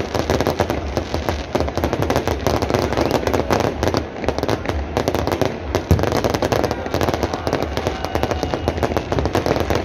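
Aerial fireworks going off in a dense, unbroken barrage of bangs and crackles, many per second, with one louder bang about six seconds in.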